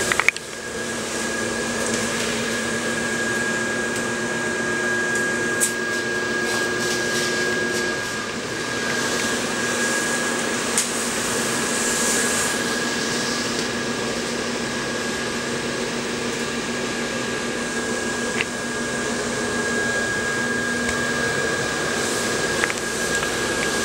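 Electric blower fan of an inflatable lawn ornament running steadily: an even whir with a constant high whine and lower hum tones, part of which drop out partway through. A few small knocks sound over it.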